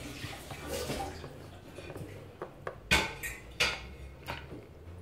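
Small plastic toys and plastic tubs being handled on a table: a few light clacks and taps, the loudest about three seconds in.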